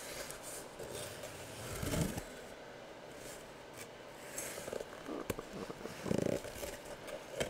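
Faint handling of a cardboard jersey box as its lid is worked open by hand: a few soft scrapes of cardboard with a sharp click about five seconds in.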